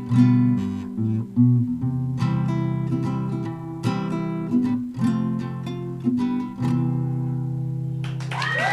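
Acoustic guitar strumming the closing chords of a folk song, ending on a chord left ringing about two-thirds of the way through. Near the end a high, gliding sound comes in over it.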